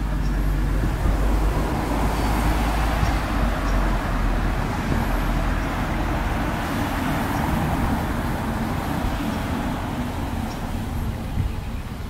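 Road traffic going by: a steady rumbling hiss that swells over several seconds and eases off near the end.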